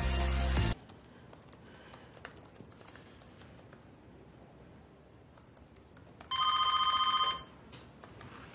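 A music cue cuts off abruptly just under a second in. After some quiet room tone with faint clicks, a telephone rings once near the end, a trilling electronic ring lasting about a second.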